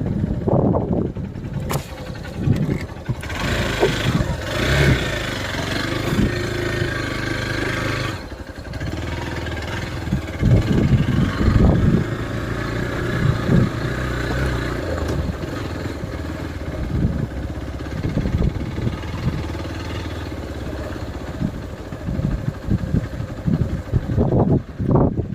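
A vehicle's engine running on a rough off-road track, its pitch stepping up and down as it works, with repeated knocks and rattles from the bumpy ride.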